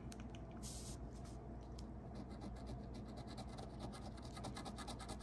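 Coin scraping the silver coating off a scratch-off lottery ticket: quick, faint scratching strokes.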